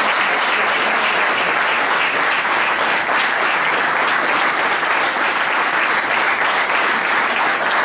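Audience applauding: a dense, steady clapping from many hands that holds at one level throughout.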